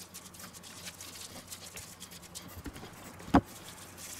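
Dry spice mix shaken from a paper bag, the grains pattering lightly onto raw pork and a wooden cutting board, with paper rustling. A single thump about three seconds in.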